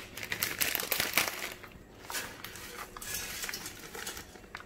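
Dry spaghetti being taken up and dropped into a pot of hot water: a run of crackly clicks and crinkles, densest in the first two seconds, then thinning to scattered ticks.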